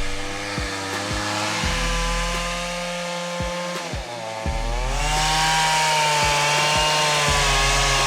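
A small motor running with a wavering pitch, dipping a little before four seconds in, then rising and getting louder about five seconds in, with a few sharp clicks.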